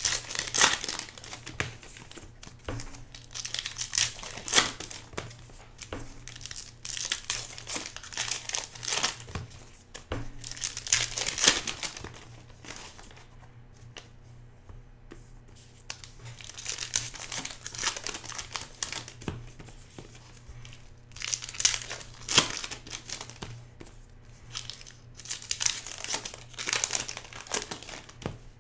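Foil trading-card pack wrappers being torn open and crinkled by hand, in repeated bursts with a short lull about halfway through.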